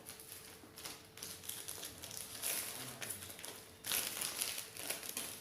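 Hands handling and turning a product box, with rustling and scraping of the packaging. It gets louder twice, around the middle and again about four seconds in.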